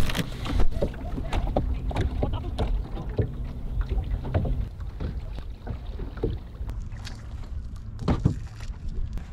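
Handling noise on a small boat: irregular clicks, taps and rustles of hands working a pippi shell and baiting a hook, over a low rumble of water and wind. Two louder knocks stand out, one under a second in and one about eight seconds in.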